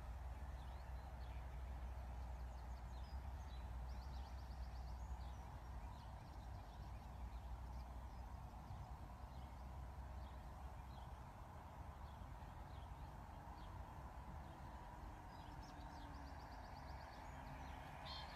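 Faint outdoor ambience: scattered bird chirps and a couple of short trills over a low steady rumble.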